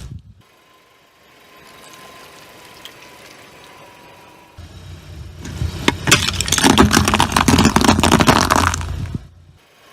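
A car's engine rumbles as it rolls forward, then its tyre crushes crunchy objects with dense crackling and snapping for about three seconds, stopping abruptly near the end.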